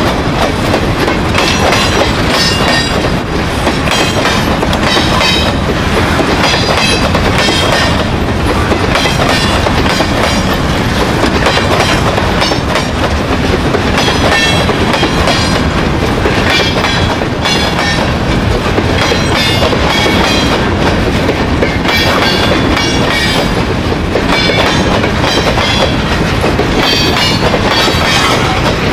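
Loaded freight train of covered hopper and box cars rolling past, steel wheels running loud and steady on the rails with repeated clicks as the trucks cross the rail joints.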